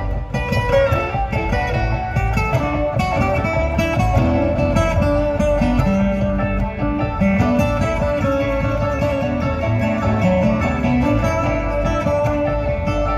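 Live bluegrass string band playing an instrumental passage: acoustic guitars picking over banjo and upright bass, steady throughout.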